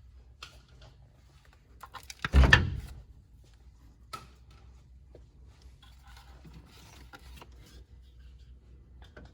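Hand tools and parts being handled at work on the engine: scattered clicks and light knocks, with one louder clunk about two and a half seconds in.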